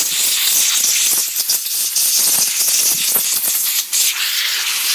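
Can of compressed air blowing hard, a loud hiss in long blasts with brief breaks about one, two and four seconds in, blowing the dust out of a keyboard's insides.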